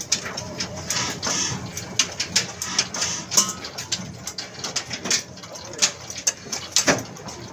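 Old desi diesel engine with a heavy flywheel, running slowly: a steady low hum under a dense run of sharp, uneven knocks.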